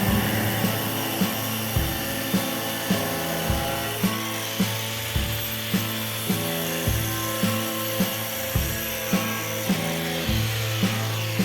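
Background music with a steady beat of about two a second, over the continuous high hiss of an angle grinder at work. The grinder noise cuts off just after the end, leaving the music.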